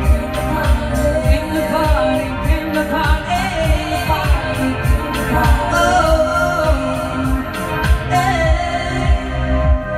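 A woman singing live into a microphone over an electronic backing track with a steady beat; the high percussion drops out near the end.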